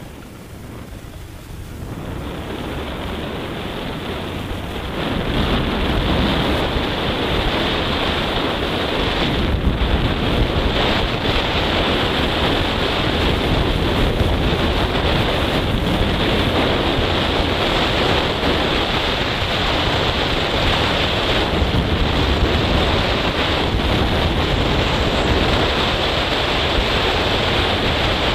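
Wind rushing over the microphone of a moving Honda Fan 160 motorcycle as it pulls away and gathers speed, rising in two steps over the first five seconds and then a loud, steady rush that covers the engine.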